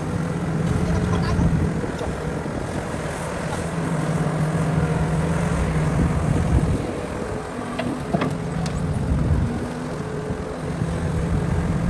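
Heavy construction machine's engine running with a steady low hum that eases off for a few seconds and picks up again near the end, with a few sharp knocks about eight seconds in.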